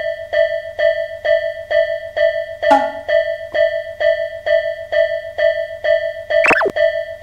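Japanese railroad crossing warning bell ringing in an even, fixed-pitch ding about two and a half times a second. One stronger note stands out about three seconds in, and a quick sound effect sweeps down and back up in pitch near the end.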